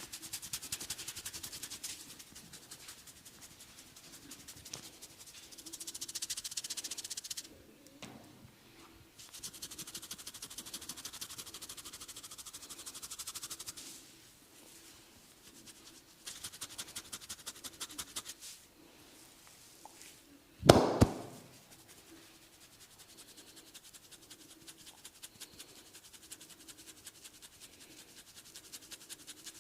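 Fast, rhythmic rubbing and scratching strokes of a head massage on hair and scalp, coming in spells of a few seconds with short pauses between. About twenty seconds in there is one loud sharp snap.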